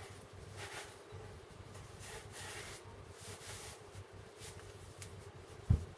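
Repeated soft rubbing strokes as the parts of a Hilti core drill adapter are cleaned by hand, with a single brief low thump near the end.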